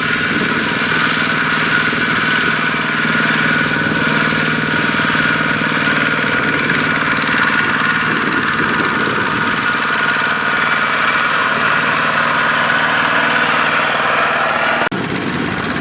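Kubota single-cylinder diesel tractor engine running steadily with a knocking chug. The sound breaks off abruptly near the end and picks up again with a slightly changed tone.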